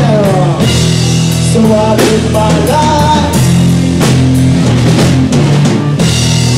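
Live band playing loudly without vocals, the drum kit to the fore over held bass notes and gliding melodic lines.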